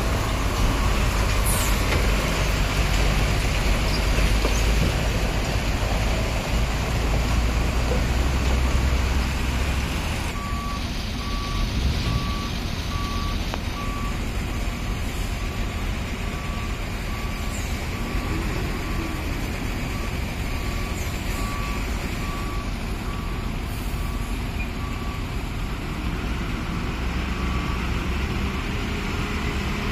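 Heavy diesel trucks running slowly through mud, one engine close by giving a loud low rumble for the first ten seconds. From about ten seconds in, a truck's reversing alarm beeps at an even pace, roughly once a second, over the engines' drone. Near the end an engine revs up.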